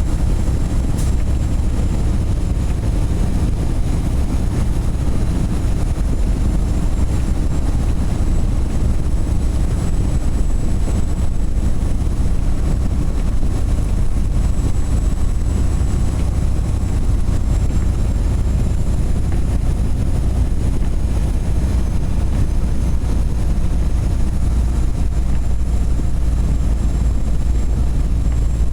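Semi-truck driving down the road: a steady low rumble of engine and road noise, heard from inside the cab, with a faint thin high whine over it.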